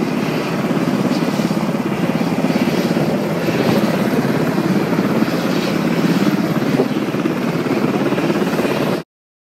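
Loud, steady aircraft noise with a fast chopping flutter, cutting off abruptly near the end.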